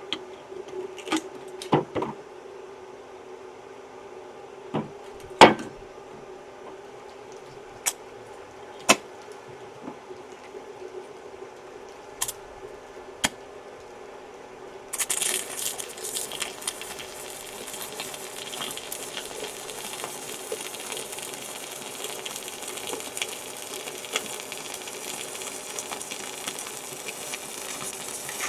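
A dozen or so sharp knocks and clicks, then about halfway through an electric welding arc strikes and crackles steadily as a bead is laid.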